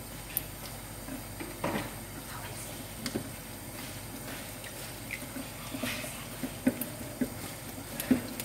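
Kitchen tap running steadily into a stainless steel sink while raw fish is rinsed under it, with scattered small clicks and knocks from the fish being cut with scissors.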